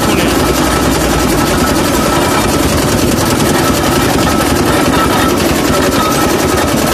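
Engine-driven sugarcane juice machine running steadily, a fast, even chugging as its ribbed steel rollers crush a bundle of cane and squeeze out the juice.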